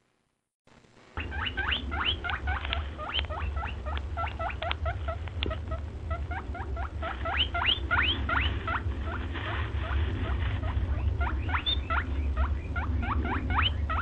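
Rapid, high small-animal squeaks that sweep upward in pitch, several a second, over a steady low hum. They start about a second in, after a short silence.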